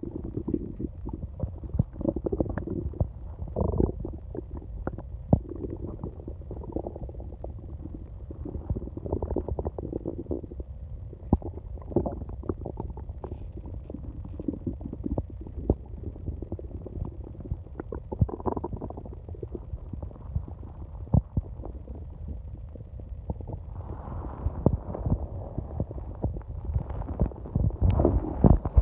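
Human stomach growling almost without a break: low rumbles that swell and fade, peppered with many short clicks and pops.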